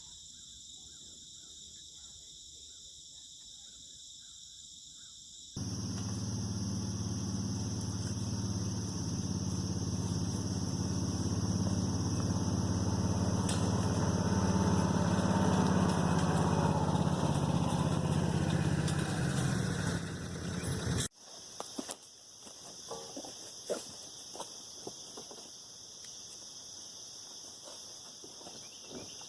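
A steady, evenly pitched engine runs for about fifteen seconds, starting about five seconds in and stopping abruptly, over a steady chirring of insects that is heard alone before and after it, with a few light knocks near the end.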